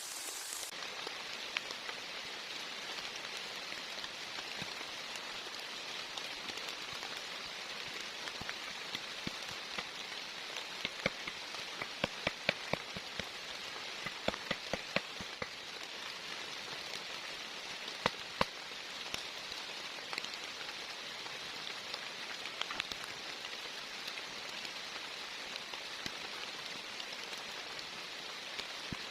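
Heavy rain falling steadily, with scattered sharp drop impacts, most of them between about 8 and 19 seconds in.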